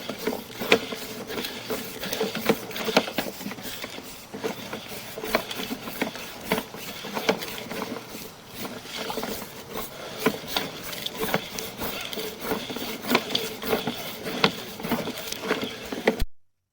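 Sewer inspection camera being pushed down a 4-inch ABS sewer line: irregular clicks, knocks and scrapes over a steady hum. It stops abruptly near the end.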